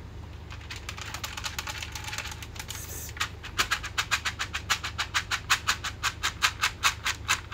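A person making quick kissing clicks with the lips to call a cat: a steady run of sharp clicks, about five a second, growing louder about three seconds in, over a steady low rumble.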